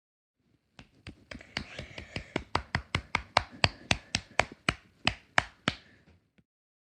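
A quick, even series of sharp clicks or taps, about four a second, growing louder through the middle and fading near the end.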